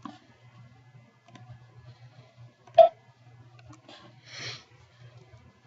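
Computer mouse clicks: one sharp click about three seconds in and a fainter one at the start, over a low steady hum, with a short soft hiss a little after four seconds.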